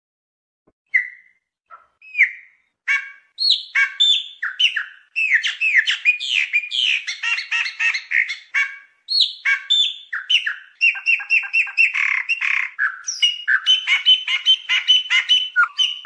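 Chopi blackbird (pássaro preto) singing: a few separate notes about a second in, then from about five seconds a dense, rapid run of varied chirps and whistles.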